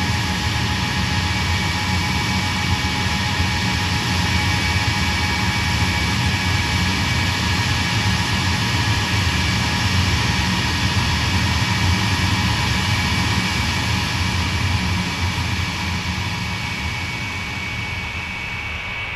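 Ilyushin Il-76TD's Soloviev D-30KP-2 turbofan engines running on the ground during start-up: loud, steady jet noise with a high turbine whine over a low rumble, easing slightly near the end.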